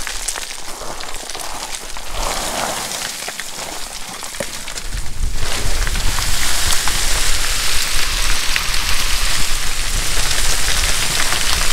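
Wind buffeting the microphone: a rushing hiss with a deep rumble, which grows louder about five seconds in. Before that, small clicks and crunches of loose scree shifting underfoot can be heard under a lighter hiss.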